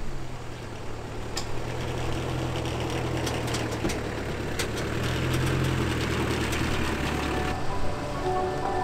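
An engine running steadily with a low hum, which stops about seven and a half seconds in.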